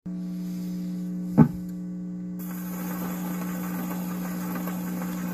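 Steady electrical hum from the RCA 331 radio-phonograph's amplifier. About a second and a half in there is one loud thump as the pickup is set down on the spinning 78 rpm record. About a second later the record's surface hiss starts and runs on under the hum.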